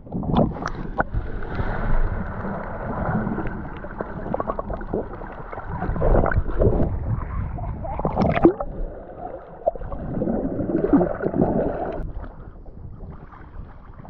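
Sea water sloshing and gurgling around an action camera held at the waterline, sounding muffled, in uneven surges as small waves wash over it.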